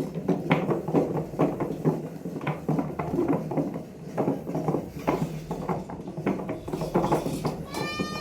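Wooden cable roller turning, a rapid, irregular clatter of wooden knocks and clicks.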